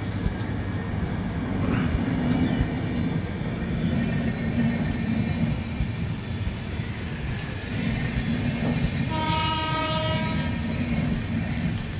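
Indian Railways passenger coaches rolling past at close range, a steady rumble of wheels on the rails. About nine seconds in, a train horn sounds once for about a second and a half.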